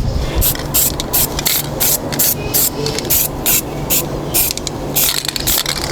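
Aerosol spray-paint can sprayed in short, light hissing bursts, about three a second.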